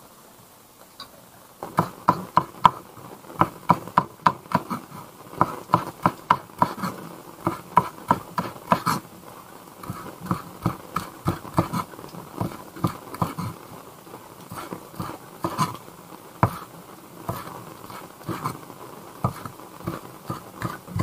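Chinese cleaver chopping green onions on a wooden cutting board: quick, uneven knocks, about three to four a second, starting about two seconds in.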